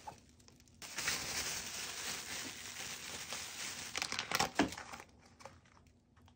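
Plastic wrap and packaging crinkling as wrapped food containers are handled and lifted out of an insulated bag, with a couple of sharp knocks of plastic containers about four and a half seconds in.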